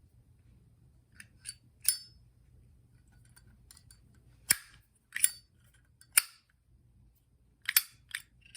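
New Zippo windproof lighter's hinged lid being flipped open and snapped shut several times: sharp metallic clicks in small clusters, some with a brief ring.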